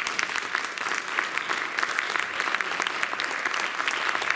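Audience applauding: many hands clapping at an even level throughout.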